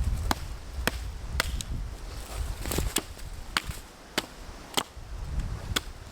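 Wood being chopped by hand: about eight sharp strikes at irregular intervals, roughly one every half second to a second.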